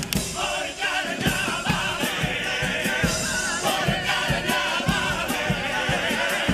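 Comparsa male choir singing in harmony over strummed Spanish guitars, with a steady drum beat underneath.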